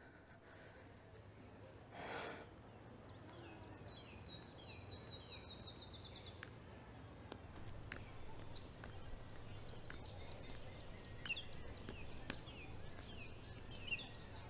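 Birdsong in a garden: a quick run of about a dozen falling chirps between four and six and a half seconds in, then scattered chirps near the end, over a faint steady high tone. A brief soft rush of noise about two seconds in.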